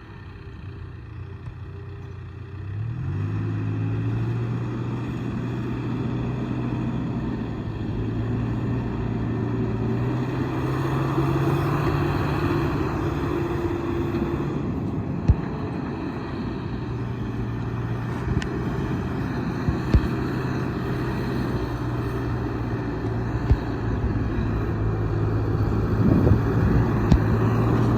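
John Deere 310K loader backhoe's four-cylinder diesel engine running. Its speed picks up about three seconds in and rises again for a few seconds around the middle, with a few short sharp knocks in the later half.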